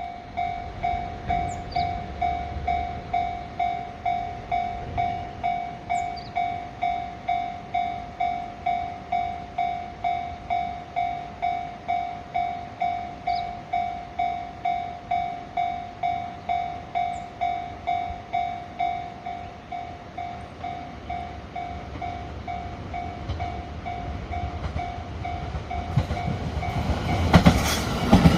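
Japanese level crossing warning bell ringing in an even, repeated ding, about one and a half strikes a second, growing fainter toward the end. A Shinano Railway electric train then arrives loudly over it in the last couple of seconds.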